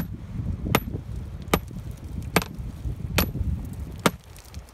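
Hammer blows, six sharp strikes at an even pace of a little more than one a second, each with a brief high ring, breaking up something to make fishing bait.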